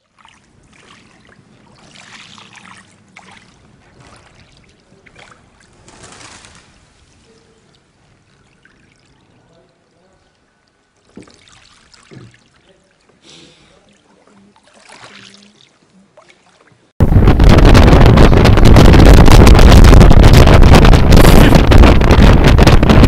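Strong wind buffeting the microphone, starting suddenly about three quarters of the way in and very loud and rough from then on. Before it, only faint, quiet sounds.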